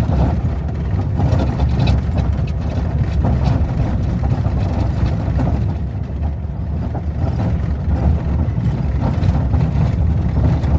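Road noise heard from inside a vehicle driving on a gravel dirt road: a steady low rumble of tyres and engine, with scattered faint ticks.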